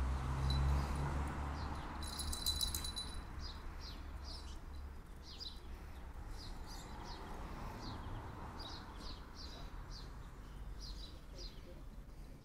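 Small birds chirping in short, high notes repeated every half-second or so, over a steady low rumble. About two seconds in, a brief buzzy trill stands out.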